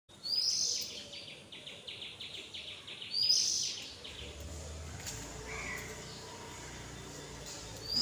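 House sparrows chirping: loud, sharp chirps near the start and again about three seconds in, with a quick run of rapid chattering notes between them and softer calls after.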